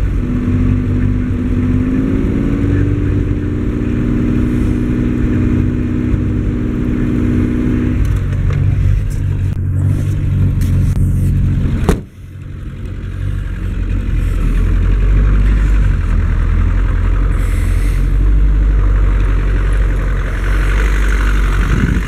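A car engine running and revved: its pitch rises over the first couple of seconds, holds, then drops back about eight seconds in. A sharp click near the middle is followed by a low steady rumble.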